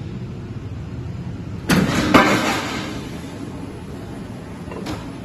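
C/Z purlin roll forming machine running, its forming rollers turning with a steady mechanical hum. About two seconds in, a loud sudden rush of noise breaks in and fades over about a second. There is a short click near the end.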